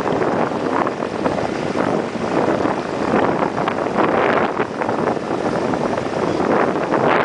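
New Holland TVT 195 tractor running steadily with its front flail mower cutting as it drives slowly past, with wind buffeting the microphone.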